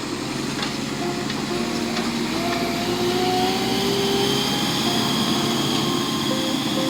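Tractor loader backhoe's diesel engine running steadily while it works.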